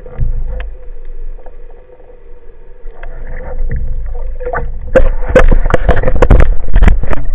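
Water sloshing and splashing around an underwater camera just below the sea surface, over a faint steady hum. From about five seconds in it turns loud, with dense crackles and splashes.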